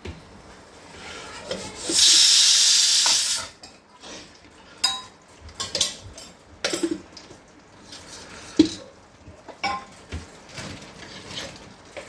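Kitchen sounds: a loud hiss about two seconds in that lasts about a second and a half and stops sharply, followed by scattered clinks and knocks of pots, lids and utensils.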